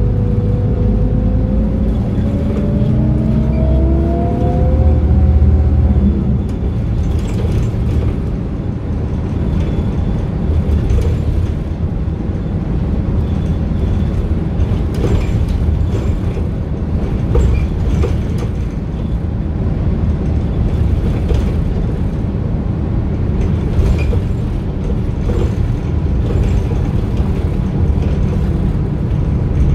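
MAN NM 243 midibus's D0836 six-cylinder diesel heard from inside the bus, its note climbing as it pulls away for about six seconds, then dropping back. After that comes steady engine and road rumble with scattered interior rattles and clicks.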